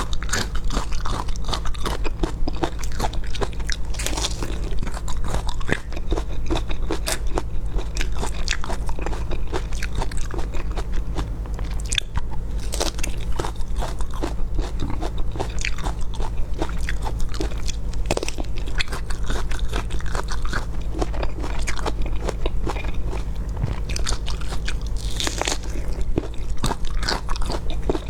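Close-miked bites and chewing of a hard, crunchy food: dense crunching and crackling with sharp snaps as pieces break, without pause.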